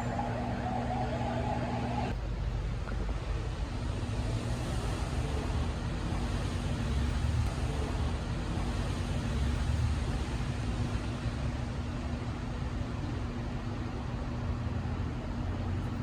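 Steady low rumble of street traffic, with a steady low hum running under it and a higher hum that stops about two seconds in.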